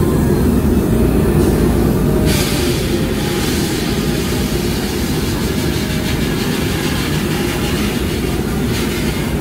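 Sandblasting cabinet in use: compressed air and abrasive blasting from a hand-held nozzle against an alloy wheel rim, a loud steady rushing noise whose high hiss grows stronger about two seconds in. The blasting strips the rim clean around a large crack so it can be welded.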